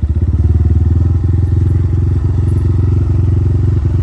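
GPX FSE 250E dirt bike's single-cylinder four-stroke engine running steadily, without revving.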